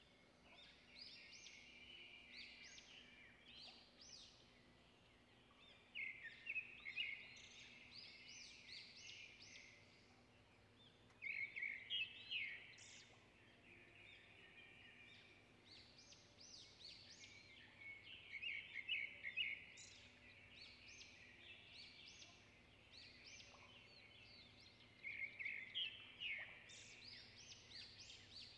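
Songbirds singing: a burst of rapid chirping phrases every few seconds, with quieter twittering in between.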